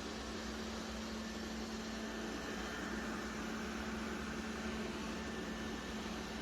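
Roborock Qrevo Pro robot vacuum running, a steady whirring hum with a faint even tone.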